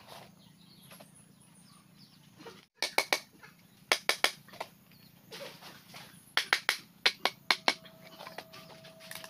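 A machete striking bamboo: sharp wooden knocks in quick pairs and clusters, starting about three seconds in.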